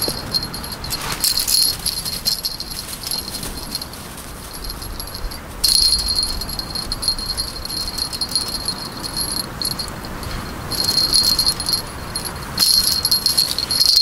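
Cat wand toy jingling in irregular spurts as it is shaken and batted about, with bright, tinkling rings.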